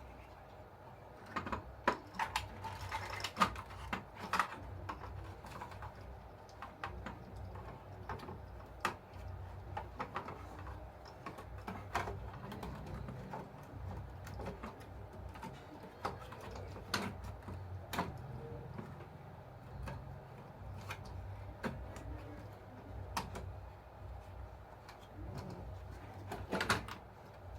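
Irregular clicks and taps of small plastic parts and tools being handled on a workbench, scattered through the stretch, over a steady low hum.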